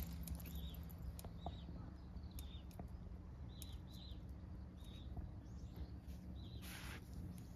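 A small bird calling outdoors: short, high chirps repeated about once or twice a second over a faint steady low hum. There is a brief rustle a little before the end.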